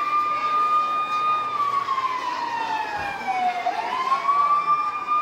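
A siren wailing, its pitch rising, holding, then falling slowly before rising again near the end, in one long slow cycle of about five seconds.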